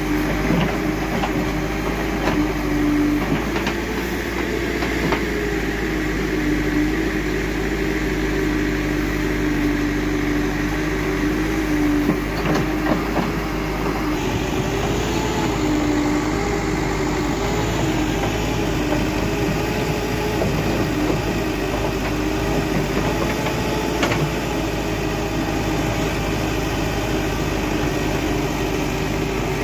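Diesel engine of a Manitou TLB 740S backhoe loader running steadily while it digs soil and loads it into a tipper truck, its pitch wavering a little in the second half. A few knocks in the first half as the bucket works.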